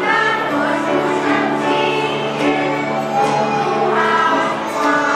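A children's choir singing together, holding long notes.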